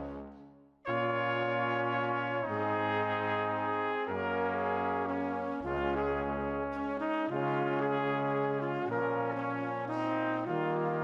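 Background music of sustained brass chords, changing every second or two. It fades away just after the start and comes back in abruptly about a second in.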